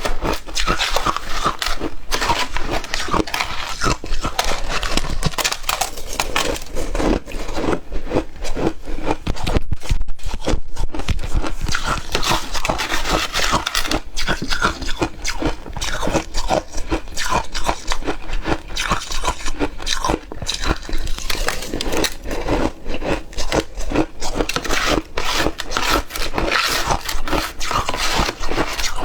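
Close-up crunching and chewing of shaved ice: dense, irregular crunches and crackles of ice breaking between the teeth.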